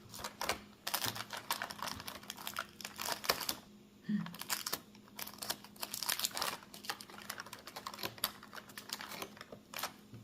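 A cardboard advent calendar being handled while its small door is pushed and pried open: runs of quick small clicks and crinkles, with a brief pause about four seconds in.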